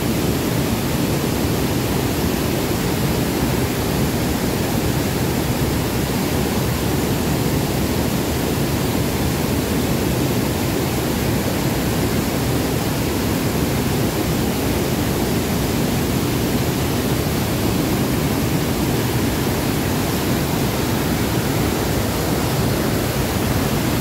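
Swollen, muddy stream water rushing over stepped rock ledges and pouring over a waterfall's lip: a steady, dense rush of white water in spate with runoff.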